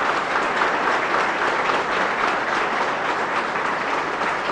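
A hall audience applauding steadily, a dense patter of many hands clapping.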